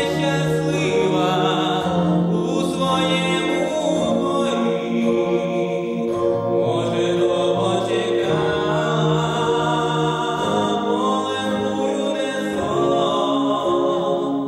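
A young man's solo singing voice through a handheld microphone over instrumental accompaniment, with long held notes.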